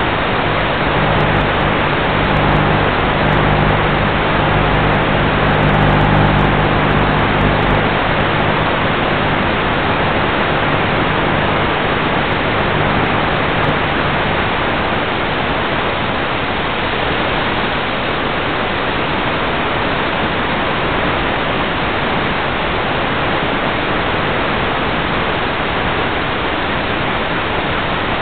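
Steady rushing noise on an RC plane's FPV onboard audio as it glides with the motor off. A low hum under it fades out about eight seconds in.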